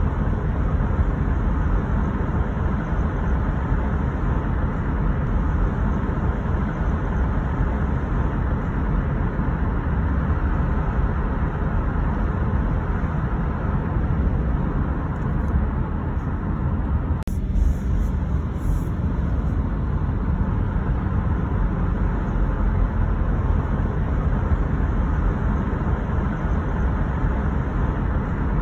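Steady road and tyre noise of a car driving, with a brief click and momentary dip a little past halfway.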